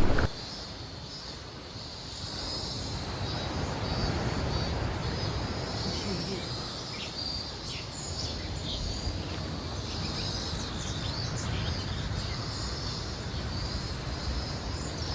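Outdoor ambience: a steady rushing noise that slowly swells and eases, with insects trilling high and a few short bird chirps.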